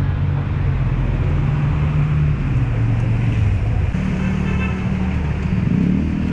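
Electric fuel pump running submerged in a basin of liquid: a steady motor hum whose pitch shifts down and then up a few times. Its output is weak, with little pressure, the sign of a worn pump.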